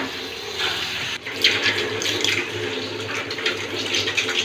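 Water spraying and splattering out of a copper pipe as it is cut open with a rotary pipe cutter, louder from just after a second in. It is the water left in the line after the supply has been shut off.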